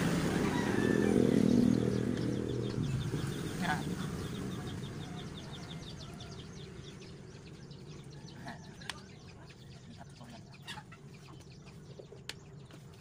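A passing vehicle's engine fading away over the first few seconds, then faint chicken clucking with a few sharp clicks.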